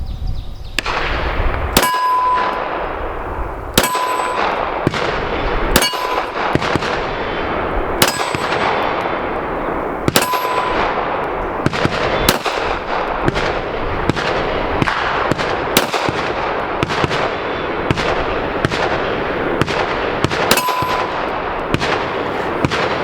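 Ruger RXM 9 mm pistol fired in a steady slow string, roughly one shot every two seconds. Several shots are followed by a brief metallic ring, and fainter gunfire from other shooters sounds between them.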